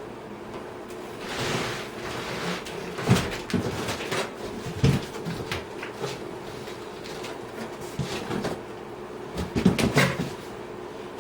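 Large cardboard box being pulled down off a lawn mower: a short scraping rustle of cardboard, then scattered knocks and thumps, loudest about three seconds in and again near the end.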